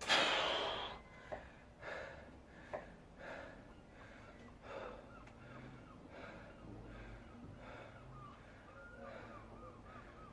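A person breathing hard after exertion: one loud gasping exhale at the start, then heavy breaths every second or so that slowly ease off.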